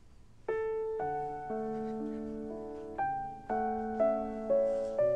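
Background score on piano starts about half a second in: a slow melody of sustained notes struck roughly every half second.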